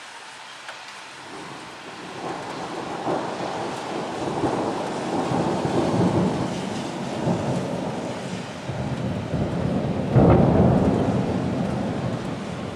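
Thunder rolling: a long low rumble swells up a second or two in, peaks with a louder clap about ten seconds in, then fades.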